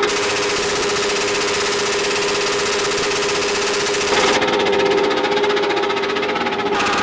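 Big motorcycle engine held at high, steady revs, run hard on purpose in an attempt to blow it up. The sound changes abruptly about four seconds in.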